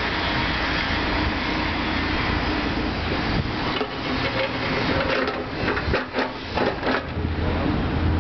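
Manual pallet jack being pulled and rolled across pavement, its wheels and steel frame rattling and clattering in bursts from about three and a half seconds to seven seconds in.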